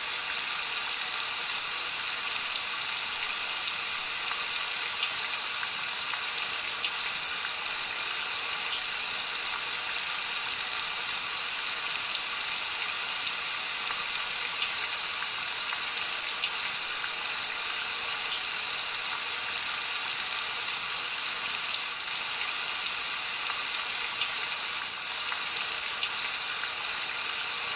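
Pure Enrichment WavePremium sleep sound machine playing its rain sound through its small speaker: a steady, even hiss of falling rain with faint scattered drop ticks, running as a continuous loop.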